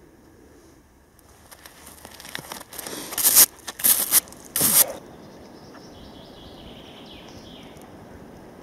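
Gloved hands rubbing and scraping caked soil off a rusted, dug-up relic, with three loud rough scrapes between about three and five seconds in. After that, a steady faint background noise.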